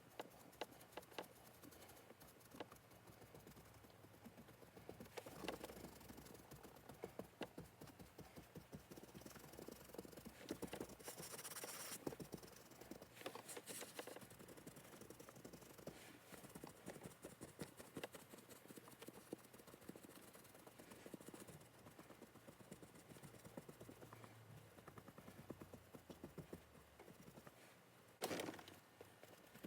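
Faint, frequent soft taps of a sponge dabbing leather colourant onto a car seat bolster, with occasional louder handling noises.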